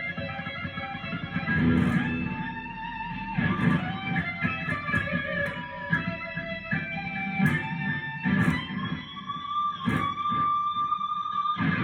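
Guitar being played: plucked and strummed notes and chords that ring on and overlap, with a wavering held note about three seconds in.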